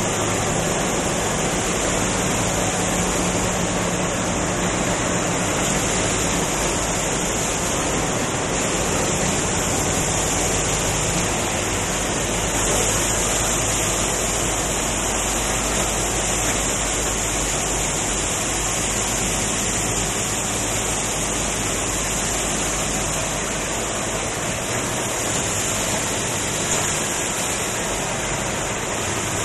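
Steady, dense machine noise from coil nail production machines running in a workshop, with a low electric hum for roughly the first ten seconds.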